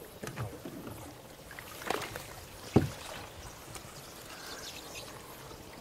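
Water trickling and sloshing around a small boat pushed with a bamboo pole through a lotus pond, with a few knocks, the loudest about halfway through.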